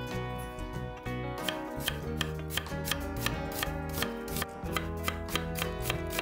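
Santoku knife slicing a peeled onion on an end-grain wooden cutting board: a steady run of crisp knife strikes on the board, about three a second, starting about a second and a half in.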